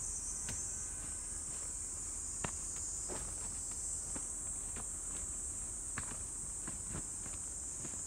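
Steady high-pitched insect chorus, with a person's footsteps on a forest trail heard irregularly underneath, a sharper step about two and a half seconds in and another about six seconds in.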